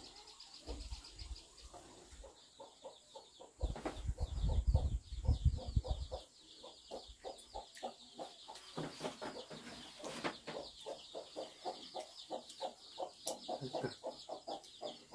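Chickens clucking in a long run of short, evenly spaced clucks, over a fast high-pitched chirring. A low rumble, the loudest sound, comes from about four to six seconds in.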